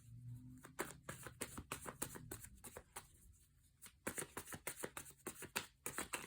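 A deck of tarot cards being shuffled by hand: a fast run of light papery clicks and flicks, easing off briefly about three seconds in before picking up again.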